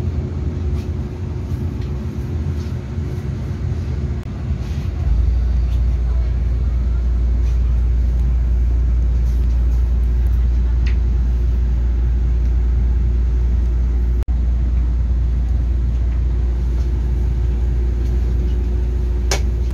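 Cabin noise inside a Taiwan Railways EMU3000 electric multiple unit: a steady low rumble with a constant hum above it. The rumble grows louder about five seconds in and then holds steady.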